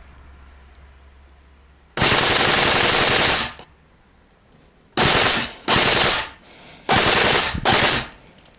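Tokyo Marui next-generation electric airsoft SCAR-L firing on full auto: one long burst of about a second and a half, then four short bursts in quick pairs.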